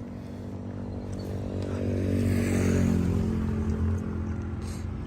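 An engine running steadily, growing louder about two seconds in and then easing off again.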